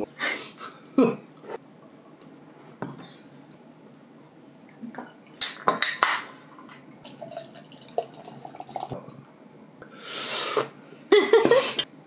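Table sounds during a meal: chopsticks clicking against plates, then an aluminium beer can cracked open with a sharp snap about halfway through, and beer poured with a hiss into a glass near the end.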